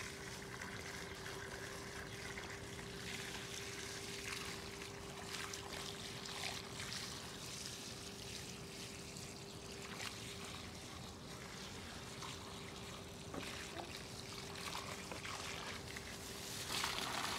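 Water from a garden hose trickling steadily onto soil, mulch and rocks in a garden bed.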